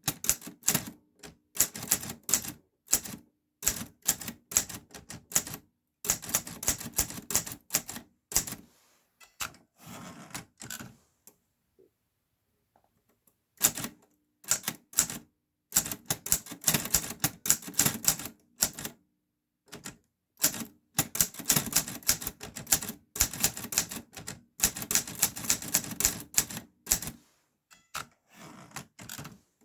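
Clover New Star 10S Hangul typewriter (two-set dubeolsik keyboard) being typed on: quick runs of sharp keystrokes, broken by a pause of about two seconds midway and turning softer near the end.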